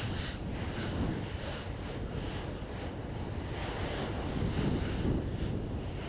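Choppy lake water sloshing and splashing in small waves close to the microphone, with wind buffeting it.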